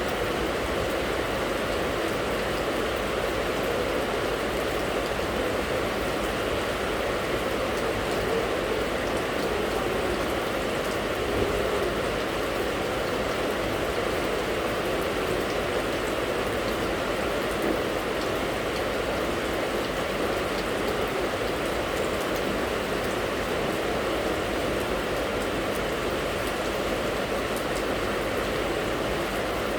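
Rain falling steadily, an even hiss with no pauses or changes.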